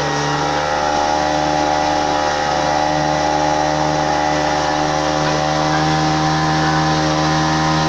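A motorboat's engine running steadily at a constant pitch.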